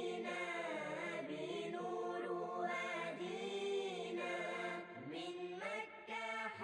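Background music: a slow, chant-like sung melody with long held notes.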